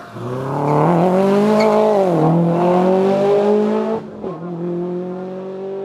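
Subaru Impreza hillclimb race car accelerating hard out of a hairpin, its engine note climbing in pitch with a brief dip about two seconds in, then dropping sharply in loudness after about four seconds as the car pulls away up the hill.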